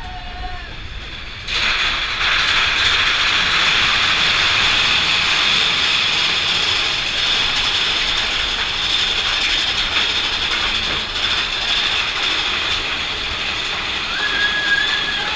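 Mine-train roller coaster being pulled up its chain lift: a dense, steady clatter of lift chain and anti-rollback ratchet that starts suddenly about a second and a half in.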